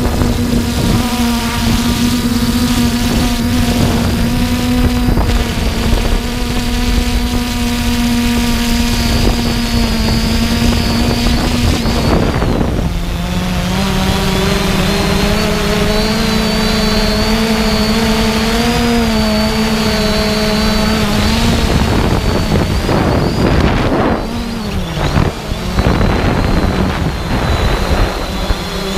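3DR Iris+ quadcopter's electric motors and propellers humming steadily, with low wind rumble on the microphone. The pitch drops a step about halfway through, and near the end it wavers and briefly dips as the drone changes its flight.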